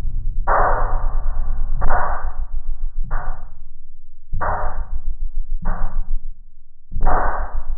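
A slow, steady beat of percussion hits, about one every second and a quarter, each striking sharply and ringing out briefly.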